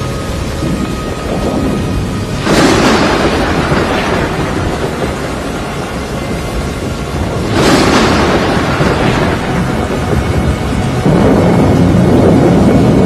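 Thunderstorm noise: a steady rush broken by three sudden loud surges, about two and a half, seven and a half and eleven seconds in. The last surge holds on near the end.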